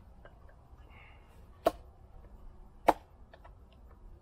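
A bushcraft knife batoned through very dry wood: two sharp, loud knocks of the baton striking the blade's spine, a little over a second apart, with a few faint clicks between.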